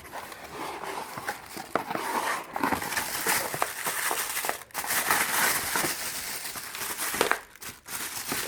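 Packaging being handled and opened: crinkling and rustling with small clicks and knocks throughout, as the machine's accessories are taken out of their wrapping.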